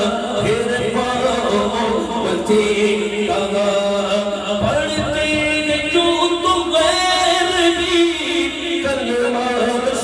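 A man singing a naat into a microphone, amplified in the hall, drawing out long held notes that slide between pitches.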